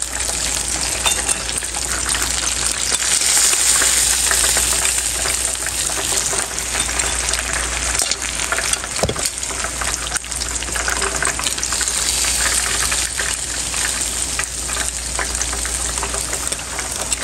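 Breaded chicken pieces frying in shallow hot oil: a steady sizzling hiss full of fine crackles.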